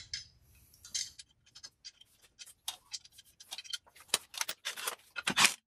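Steel lug nuts clicking and rattling against the wheel studs and steel rim as they are spun on by hand: a scatter of small metallic ticks that grows busier toward the end, with one louder burst near the end.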